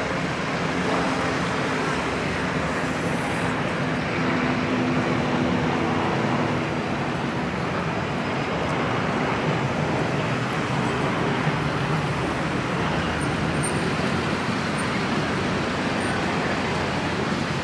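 Steady city road traffic: cars and buses running past in a continuous wash of engine and tyre noise, with a low engine hum in the first few seconds.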